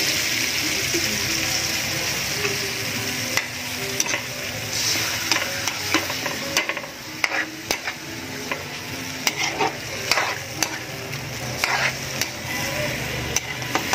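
Chicken pieces sizzling in soy sauce in a wok, with a spatula scraping and clicking against the pan as they are stirred. The sizzle is strongest for the first few seconds, then eases while the scraping clicks continue.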